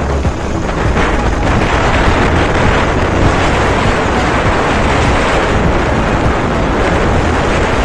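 Steady loud rush of wind buffeting the microphone of a moving motorcycle at road speed, with the bike's engine running low underneath.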